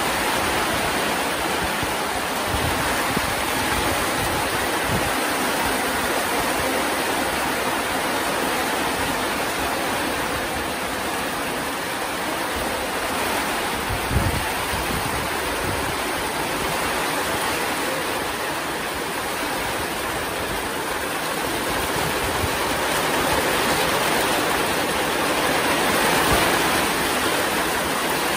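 Heavy rain pouring down steadily, with runoff from the roof splashing into open blue plastic water drums. A single short thump about halfway through.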